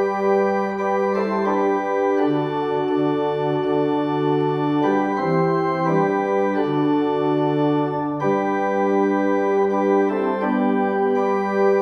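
Organ playing slow, held chords, with the bass notes changing every second or two.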